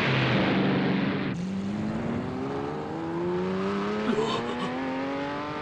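Cartoon sound effects: the rumble of an explosion fades out over the first second or so, then a vehicle engine sound rises steadily in pitch, like a motor speeding up.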